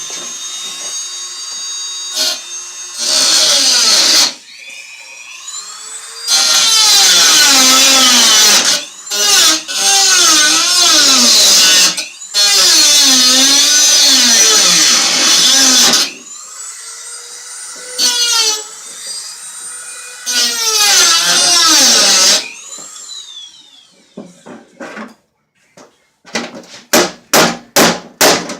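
Dremel rotary tool cutting through the metal front axle of a wagon. A high whine while it spins free, then several long, loud stretches of grinding where the pitch sags and wavers under load. It ends in a quick run of about six short bursts.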